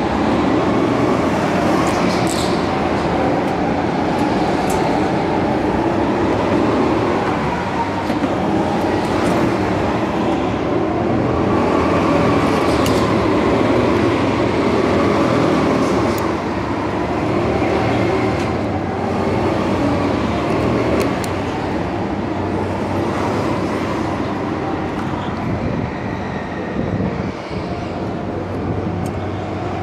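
Go-kart engines running inside an indoor karting hall: a continuous loud din that swells and eases every few seconds.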